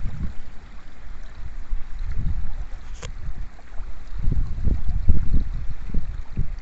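Wind buffeting the microphone in irregular low gusts over the steady rush of a shallow stream, with one short sharp click about three seconds in.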